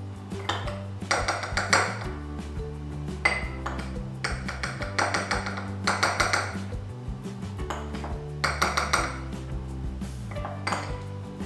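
Metal tablespoon scooping cornstarch, clinking and scraping against small glass bowls in clusters every second or two, over background music.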